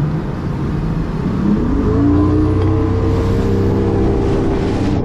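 Bass boat outboard motor throttling up: its pitch rises for about a second, then it runs steadily at speed.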